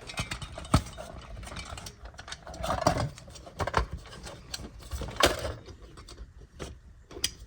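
Small objects being handled and set down on a counter: scattered clicks and knocks, about half a dozen, with light rustling between them.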